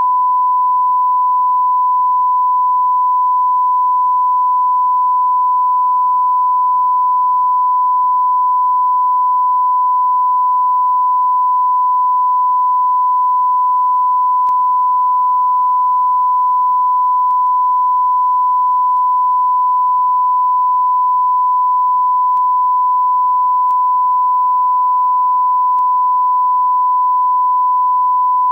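Television test tone sent with colour bars: one pure, unbroken tone at 1,000 hertz, held at a constant level. It is the line-up signal a station transmits after signing off, before the carrier goes off.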